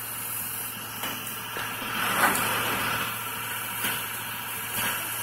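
A truck idling steadily, a low hum under a constant hiss, with one brief louder knock about two seconds in.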